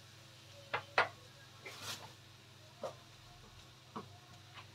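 A few sharp light clicks and taps from a plastic cooking-oil bottle being handled while oil is poured into a wok and the bottle set back down, with a brief hiss about two seconds in, over a low steady hum.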